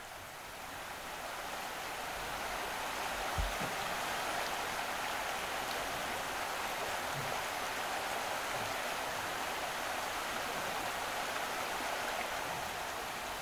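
Steady rush of running water, fading in over the first couple of seconds and then holding even, with a faint low thump about three and a half seconds in.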